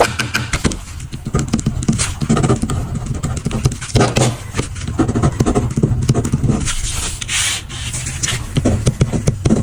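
Pen scratching and tapping on paper during grading, with the rustle of paper being handled; a longer hissing stroke comes about seven and a half seconds in.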